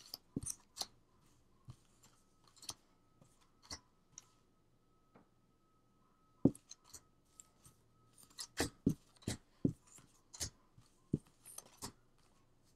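Tarot cards being drawn one by one from a deck fanned out on a cloth-covered table and laid on a pile: scattered light taps and card flicks, sparse at first and busier in the last few seconds, with one sharper tap about six and a half seconds in.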